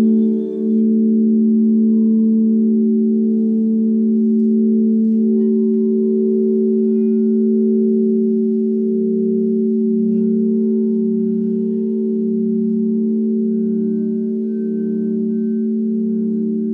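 Several crystal singing bowls sounding together, giving a sustained chord of steady tones with a slow, wavering pulse.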